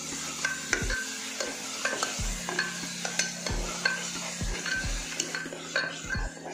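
A steel ladle stirring and scraping a thick frying masala against the bottom and sides of an aluminium pressure cooker, in repeated strokes, while the oil sizzles.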